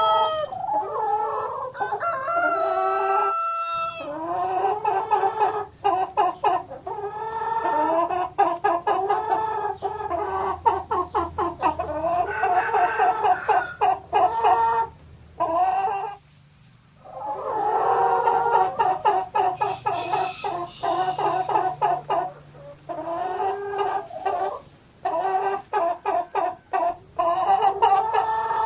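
Chickens clucking and cackling in fast runs of short calls, with a rooster crowing. The calls stop briefly a little past the middle, then resume.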